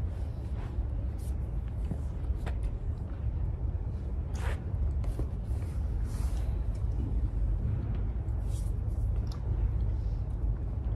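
Steady low rumble of gym room noise, with scattered soft clicks and smacks, the loudest about four and a half seconds in.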